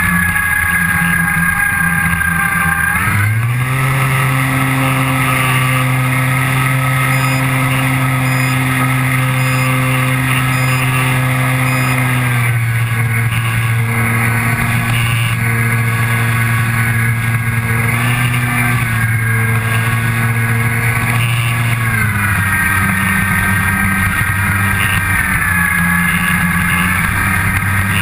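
An RC model airplane's motor and propeller, heard up close from on board: a steady buzzing whine that rises in pitch about three seconds in, holds, then drops a step around halfway and again a few seconds before the end.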